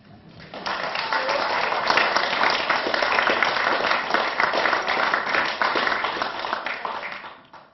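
Audience clapping, swelling over the first second, holding steady, then dying away near the end.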